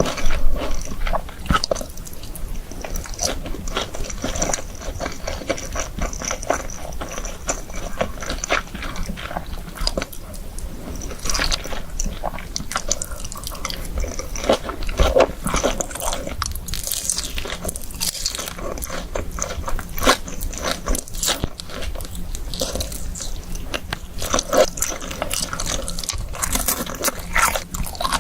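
Close-miked eating: biting into and chewing crispy fried chicken, with irregular crunches and crackles all through.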